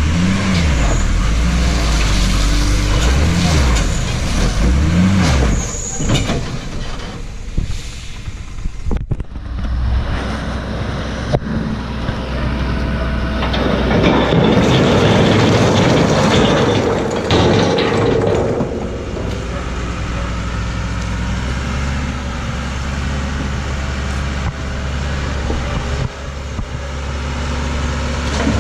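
Diesel engine of a loaded Tata tipper truck, revving up and down three times as it reverses, then running steadily at raised revs while the body is tipped. Near the end, the load of stone begins to slide out with a rumble.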